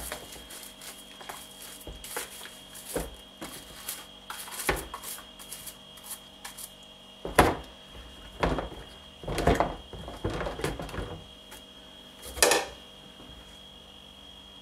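Red patent leather high heels being washed by hand in a plastic washing-up bowl of soapy water: irregular sloshing, knocks of the shoes against the bowl, and scrubbing with a dish brush, loudest in the second half and dying away near the end.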